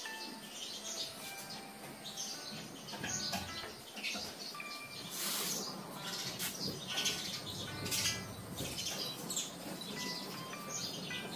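Small birds chirping over and over in short, high calls.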